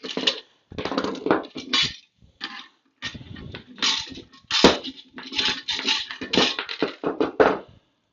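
Irregular metallic rattling, clinking and scraping from handling the parts of a recessed can light fixture and its wiring, in quick uneven bursts that stop shortly before the end.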